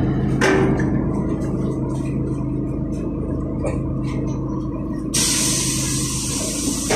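LiAZ 5292.67 city bus heard from inside while driving, its YaMZ-53624 compressed-natural-gas engine running with a steady hum. About five seconds in, a sudden loud hiss of compressed air from the bus's pneumatic system starts and carries on.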